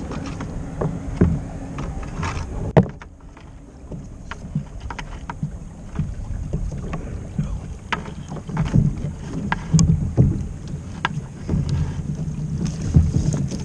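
A crab trap's rope being hauled hand over hand into a kayak, with scattered knocks and bumps against the kayak, over wind on the microphone. There is a sharp knock about three seconds in, and the bumps get heavier in the last few seconds as the wire trap comes up alongside.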